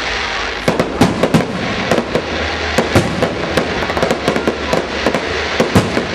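Aerial firework shells bursting overhead: an irregular, rapid string of sharp bangs and pops, several a second, starting about a second in over a steady background rumble.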